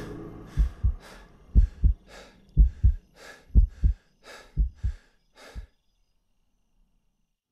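Heartbeat sound effect, paired low thumps about once a second, with short panting breaths between the beats. The beats grow weaker and stop a little before the end.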